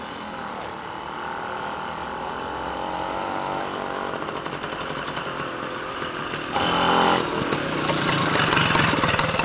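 Moped engine approaching and passing close by, growing steadily louder as it nears, its pitch wavering as the throttle changes. A short, loud blare about six and a half seconds in.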